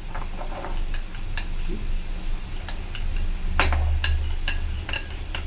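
A metal spoon clinking irregularly against a small bowl while stirring cornflour and water into a slurry, with the loudest run of taps about three and a half seconds in.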